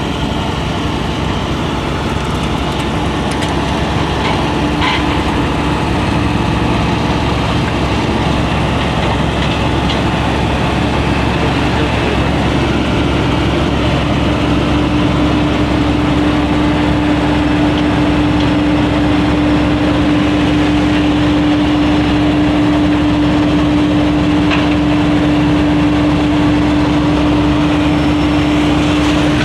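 Engine of heavy road-works machinery running steadily, with a constant hum that grows stronger partway through.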